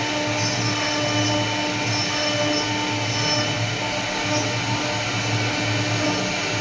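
CNC wood router's spindle running steadily, a constant machine whine with a low rumble that swells and fades.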